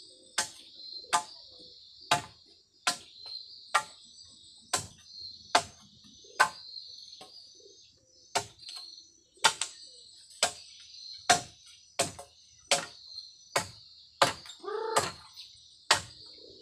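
Machete chopping at the ground with sharp strokes about once a second, pausing briefly midway, over a steady high buzz of insects. A bird calls a few times near the end.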